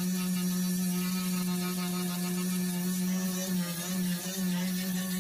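4.5-inch angle grinder with a sanding disc running steadily, its motor giving a constant hum as the disc sands down cured epoxy on an aluminum canoe hull. The hum wavers briefly a few times past the middle.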